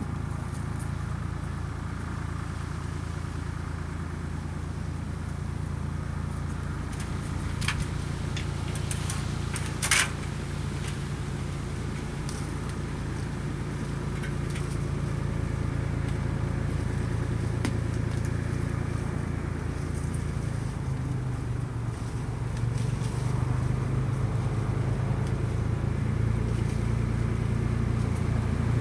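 A motor vehicle engine running steadily with a low hum that grows a little louder about two-thirds of the way through. A few sharp clicks come at about eight seconds, and a louder knock at about ten.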